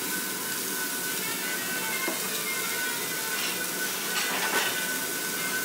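Slices of beef tongue sizzling steadily on a hot yakiniku mesh grill, with a few light clicks near the end.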